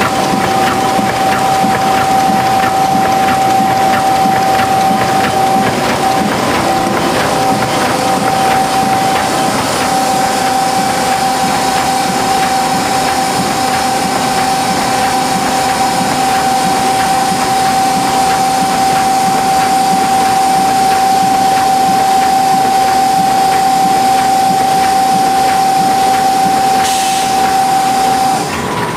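Tymi Ustar-102 UV spot coating machine running: a steady mechanical clatter from its rollers and drives, with a steady high whine that cuts off near the end, just after a brief hiss.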